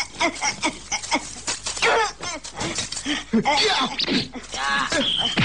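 Men shouting and grunting in a fight, with a string of short, sharp hits early on and several long bending cries later.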